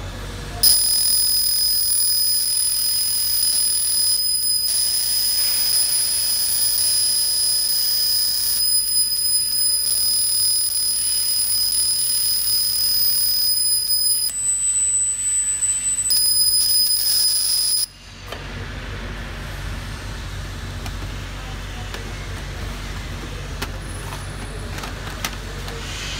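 Galvo laser engraver marking and cutting paper: a steady high-pitched whine with three short breaks and one stretch at a different pitch. It cuts off suddenly about 18 seconds in, leaving a quieter steady low machine hum.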